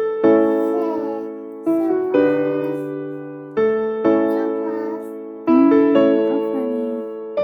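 Background music: keyboard or electric-piano chords struck every second or two, each left to fade before the next.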